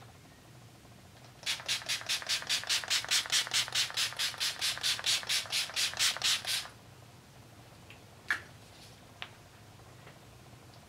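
Pump-action makeup setting spray bottle spritzing, a quick run of about two dozen hissing pumps at about five a second, lasting about five seconds. Two short ticks follow a little later.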